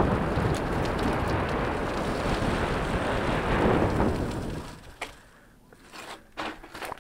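Wind buffeting a helmet-mounted camera's microphone, mixed with tyre noise from a mountain bike rolling over a gravel path. About two-thirds of the way through the rushing dies away abruptly, leaving scattered crunches and clicks of the tyres on gravel.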